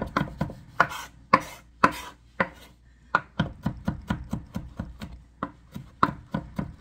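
Kitchen knife mincing garlic cloves on a cutting board: quick repeated chops, with a few harder strikes in the first couple of seconds. After a short pause it settles into a steady run of about four chops a second.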